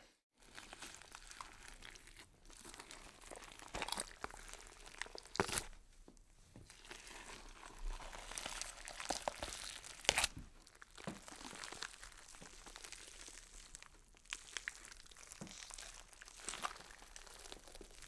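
Irregular crunching, crinkling and tearing noises played as a horror sound effect, with louder crunches about four, five and a half, and ten seconds in.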